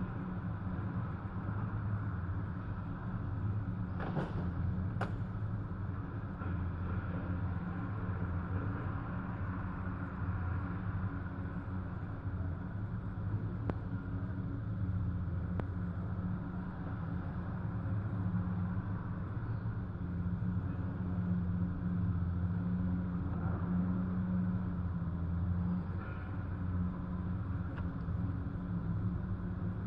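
Steady low rumble of excavator engines and street traffic, muffled through window glass, with two short clicks about four and five seconds in.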